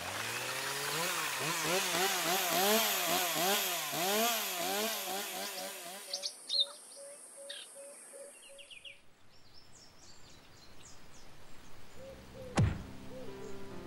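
Chainsaw sound effect starting up and revving up and down over and over for about six seconds, then dying away. Afterwards birds chirp, and a quick falling tone sounds once near the end.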